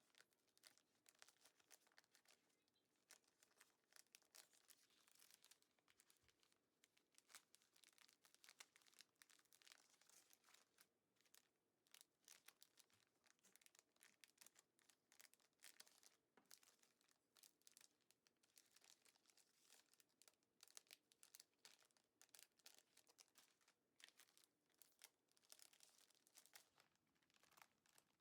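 Faint, irregular crinkling and rustling of plastic bags being handled, with scattered small clicks.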